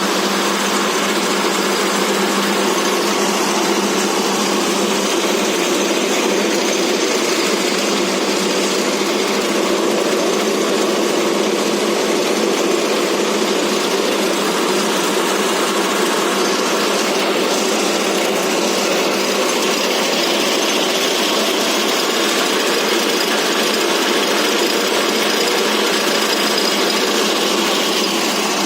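Feed pellet mill driven by a 22 hp diesel engine, running steadily with an even, unbroken mechanical noise.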